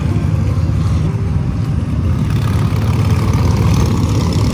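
A group of motorcycles riding past on the road, their engines running with a steady, deep, pulsing note.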